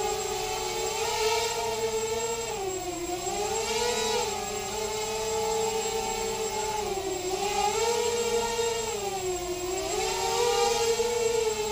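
Eachine Racer 250 quadcopter's brushless motors and propellers whining in flight, the pitch dipping and rising again every few seconds as the throttle is worked to hold it in a hover.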